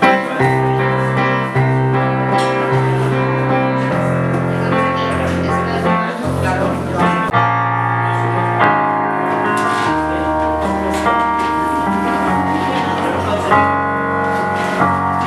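Live instrumental passage of a song, no singing: piano chords over long held bass notes, changing every second or two.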